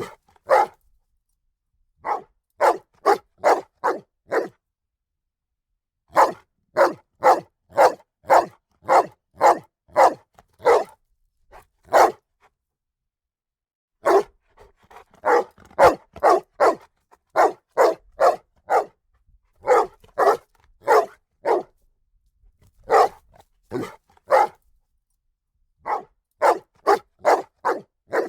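A dog barking in repeated bouts of quick barks, about two a second. Each bout is a handful of barks, with pauses of a second or two between them.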